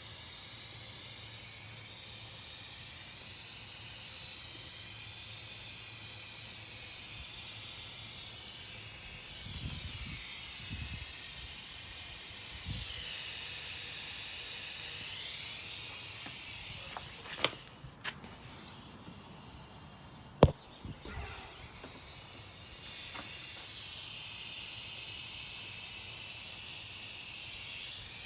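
Steady high hiss of air and smoke from a smoke-test machine feeding the engine's vacuum system during a vacuum-leak smoke test. Past the middle the hiss stops for several seconds around a few sharp clicks, the loudest about two-thirds of the way through, then it resumes.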